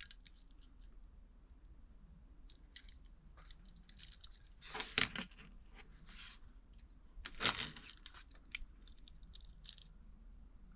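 Diecast model cars being handled: scattered light clicks and taps, with two louder rustling scrapes about five and seven and a half seconds in.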